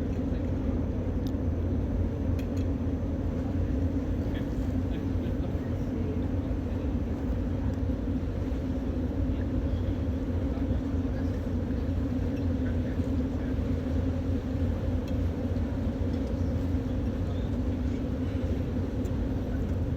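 Steady low rumble of a cruise ship's engines and machinery, with a constant hum that does not change.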